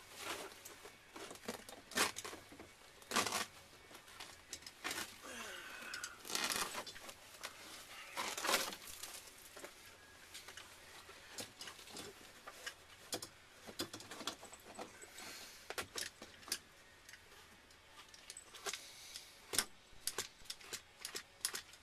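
Hand work on an old car's interior floor with a knife: scattered scrapes, tearing and light metallic clinks, in irregular bursts with the loudest near two, three, eight and a half and nineteen and a half seconds in.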